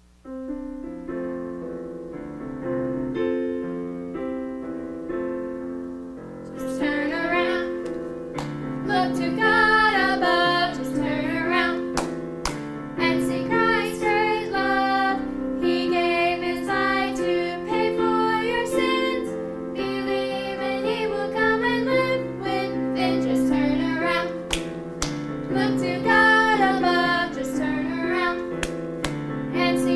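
Children's worship song: a piano or keyboard accompaniment starts with an intro, and from about six and a half seconds in, voices join singing the melody.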